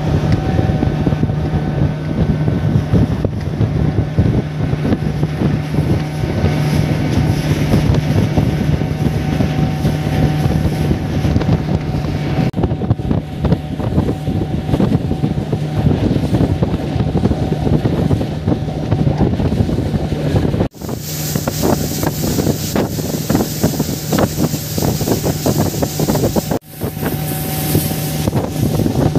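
Motorboat engine running steadily at cruising speed, a constant low drone, with wind buffeting the microphone. The sound drops out briefly twice in the last third, and after the first dropout the hiss of wind and water is louder.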